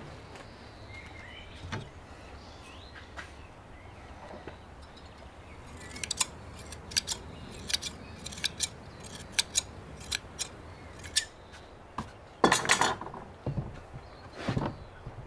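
Irregular sharp clicks and taps, about a dozen, starting about six seconds in, followed by a louder short clatter near the end, like utensils being handled.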